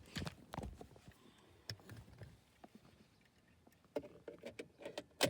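A series of irregular clicks and knocks from small objects being handled, thickening near the end into a quick cluster with one sharp, louder knock.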